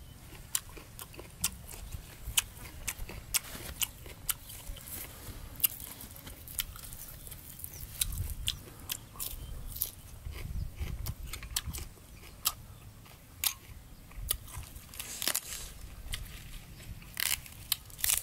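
A person chewing a mouthful of raw salmon and fresh greens close to the microphone: irregular sharp crunches and wet mouth clicks, about one or two a second.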